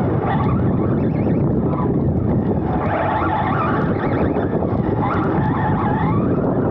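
Onboard sound of a Serpent SRX2 1/10 electric 2wd buggy racing on artificial turf. The electric motor and drivetrain whine rises and falls with the throttle over a steady rumble of tyres on turf and wind on the microphone.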